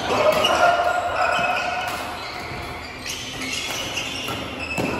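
Badminton rally in a large indoor hall: several sharp racket hits on the shuttlecock, echoing off the hall.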